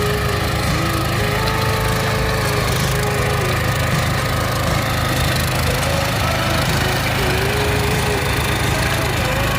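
Walk-behind cultivator's small engine running steadily under load as it works the soil.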